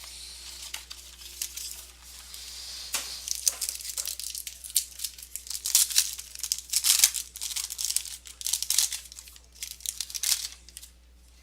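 Plastic wrapping being torn and crinkled as a sealed box of trading cards is opened, a run of crackling rips with the busiest tearing in the middle and end.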